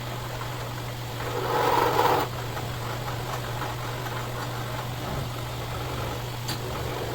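Machine tool motor running with a steady hum. About a second in there is a louder, rougher burst of cutting that lasts about a second and stops abruptly.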